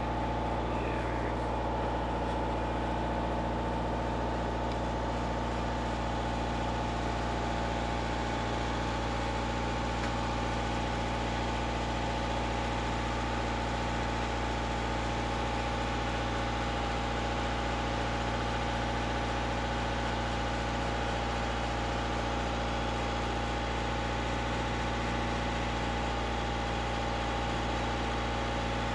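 A boat's engine running steadily, heard from inside the cabin: an even hum with several steady tones that does not change.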